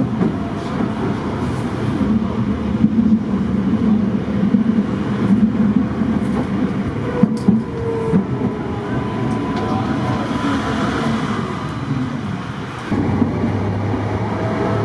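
Ride noise inside a Tatra T5C5 tram running at speed: wheels rumbling on the rails with a steady low hum and a few brief clicks. About 13 seconds in the sound changes and a lower hum comes in.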